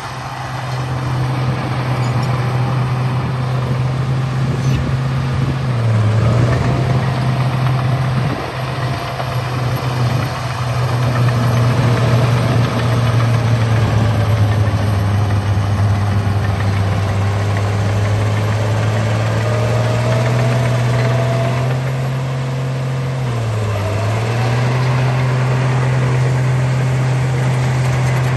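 Bulldozer engine running steadily with a deep hum, its pitch dipping briefly twice, about six seconds in and again near the end.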